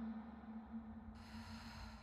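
A faint, steady low note from the soundtrack fading out, with a soft breathy hiss that starts about a second in.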